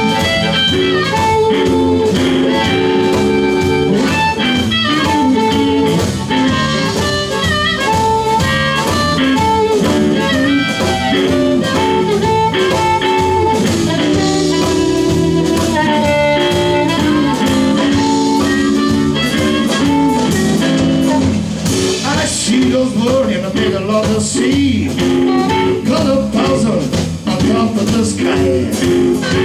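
Live blues band: an amplified harmonica, played cupped against a handheld microphone, leads with held and bent notes over electric guitar, bass guitar and drums.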